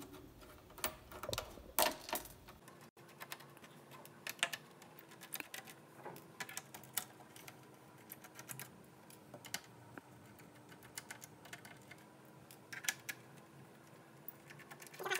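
Faint, irregular small clicks and taps of a screwdriver and hand tools working on a laptop's plastic case as its screws are undone.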